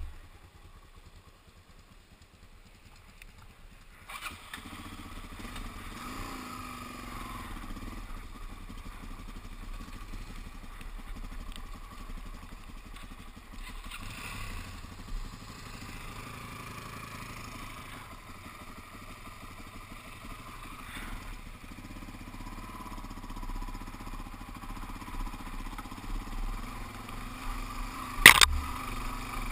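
Suzuki DR-Z400S single-cylinder dual-sport motorcycle engine, which comes on about four seconds in and runs steadily as the bike moves off along a trail. A single sharp knock sounds near the end.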